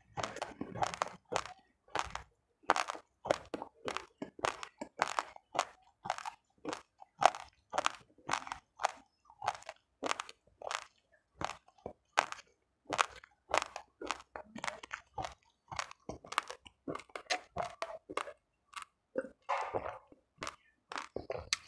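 Raw, uncooked rice grains being chewed close to the microphone: a rapid run of sharp, crisp crunches, about two or three a second.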